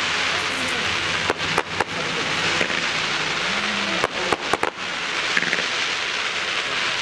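Fireworks exploding: about five sharp bangs, two around a second and a half in and three close together around four to five seconds in, over a steady hiss.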